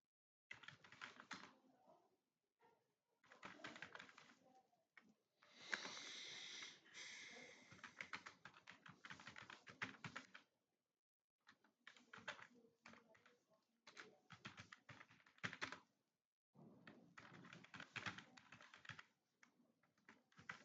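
Faint rapid typing on a computer keyboard, the keys clicking in bursts of a few seconds with short pauses between them.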